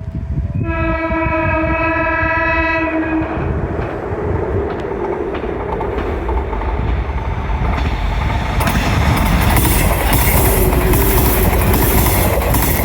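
JR West 115 series electric train sounding its warning horn in one steady blast of about three seconds, then running past close by, getting louder, its wheels clattering rhythmically over the rail joints.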